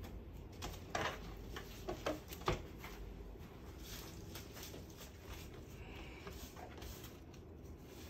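Light kitchen handling noises: a few short knocks and clicks close together in the first three seconds, the sharpest about two and a half seconds in, then only faint scattered ticks.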